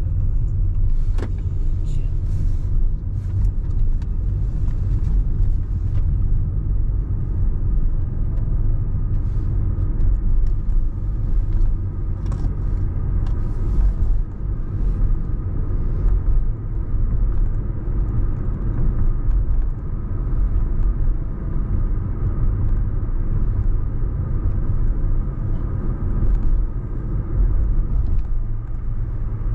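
Car driving along: a steady low rumble of road and engine noise, with a few faint clicks scattered through it.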